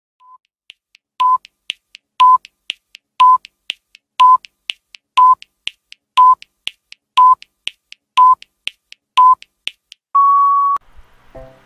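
Countdown timer sound effect: a short electronic beep once a second with lighter, higher ticks between, ending in one longer, slightly higher beep.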